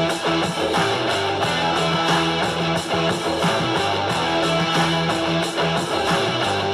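Background music with strummed electric and acoustic guitar over a steady beat.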